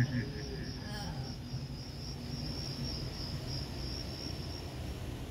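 Crickets chirping in a steady, fast, high trill that stops about half a second before the end, over a low steady rumble.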